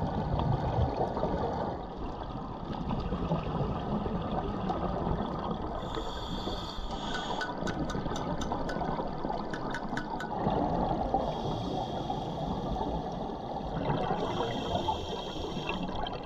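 Underwater sound of a scuba diver's regulator: exhaled bubbles come out in bursts every few seconds over a steady dull rush of water. A short run of faint clicks sounds in the middle.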